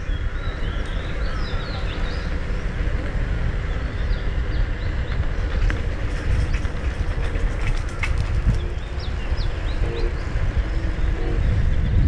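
Steady low rumble of wind and rolling motion on the microphone as an electric unicycle rides along a paved path, with birds chirping in short calls over it and a few light clicks past the middle.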